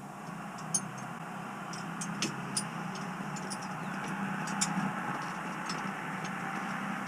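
Outdoor shower running: a steady spray of water from the showerhead, with scattered sharp ticks of drops and spatter.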